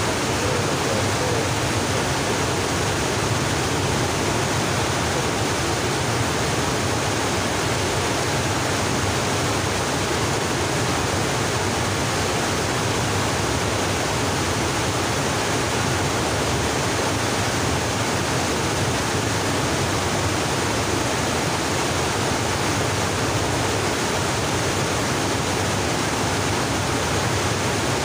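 Steady, unbroken rush of fast-flowing river water.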